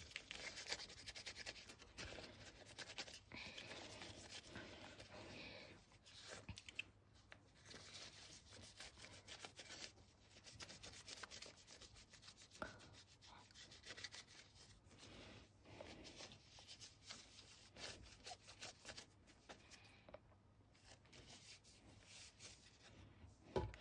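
Faint rubbing and scratching of a cleaning wipe worked back and forth over an iPhone's back and edges, a steady run of short scuffs.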